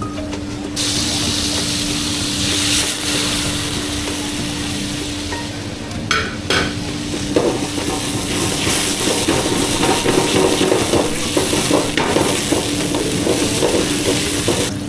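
Busy kitchen noise: a steady hum under a hiss, with a couple of sharp knocks about six seconds in and busier clatter of pans and utensils through the second half.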